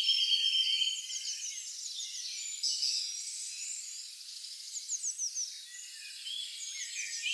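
Several songbirds singing in a forest, overlapping quick, high chirps and short falling notes. A steady, even trill runs under them for about the first second, then stops.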